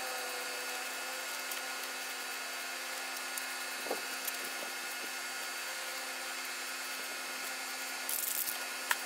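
Aerosol can of Krylon Fusion satin black spray paint hissing steadily as it sprays, with a brief louder burst about eight seconds in.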